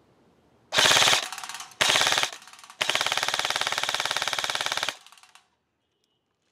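King Arms Black Rain Ordnance BRO-15 airsoft electric rifle (AEG) firing on full auto: two short bursts, the first the loudest, then a longer burst of about two seconds.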